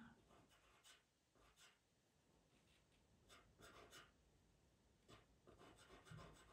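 Faint scratching of a pastel pencil drawn in short, irregular strokes across PastelMat pastel paper.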